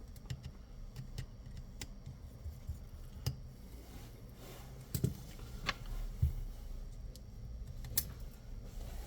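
Scattered sharp clicks and taps of small hand tools and parts being handled on an iPhone during repair, over a low steady hum. The loudest clicks come about five seconds in and near the eight-second mark.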